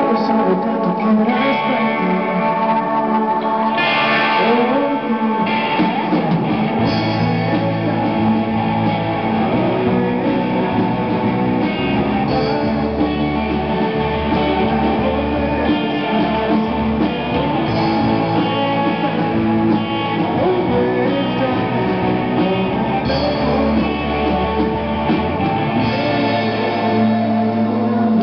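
Live rock band playing an instrumental passage: electric guitars through effects pedals over drums, with the electric bass coming in about seven seconds in.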